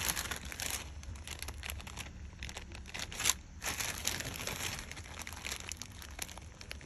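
Clear plastic zip-top bag crinkling as a hand squeezes and handles it, in irregular rustles and crackles, the loudest a little over three seconds in.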